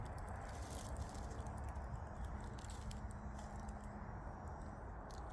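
Quiet background with a steady low rumble, scattered faint clicks and ticks, and a faint hum about halfway through.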